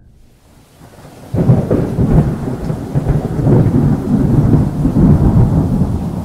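Thunderstorm sound effect: a heavy rumble of thunder over rain, coming in suddenly after a near-silent second or so and then rolling on steadily.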